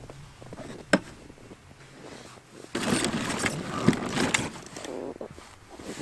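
Boots tramping through deep snow: an irregular run of crunching steps, loudest between about three and four and a half seconds in, with a single sharp knock about a second in.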